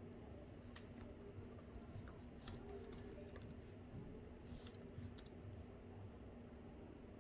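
Faint, irregular keystrokes on a laptop keyboard, a few scattered taps with a short flurry in the middle, over a faint steady low hum.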